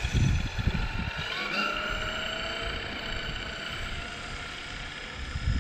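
Traxxas XRT RC monster truck's electric motor and gears whining steadily as it drives up the street, the pitch bending gently with the throttle.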